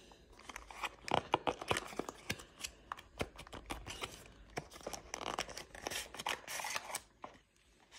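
A small white cardboard box and its paper inserts handled and opened by hand: a dense run of crinkles, rustles and light clicks of card and paper.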